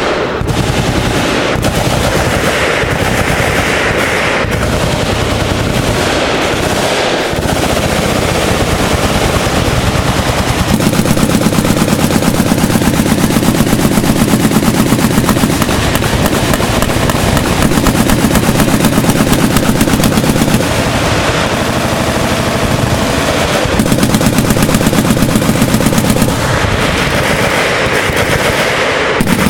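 Sustained automatic machine-gun fire with no pauses. It gets heavier about eleven seconds in and again near the end.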